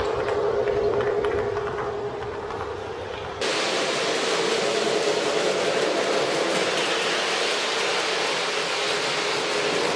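O scale model train running on the layout track: a steady motor hum with rolling wheel noise. About three and a half seconds in the sound changes abruptly to a louder, hissier rushing noise.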